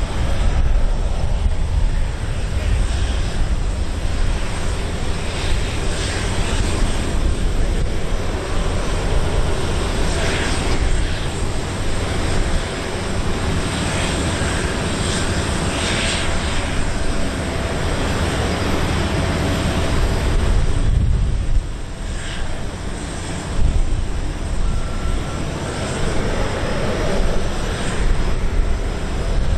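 Airbus A330-343's Rolls-Royce Trent 700 turbofan engines running at taxi power as the airliner rolls past, a steady jet rumble and hiss that swells a few times and dips briefly about two-thirds of the way through.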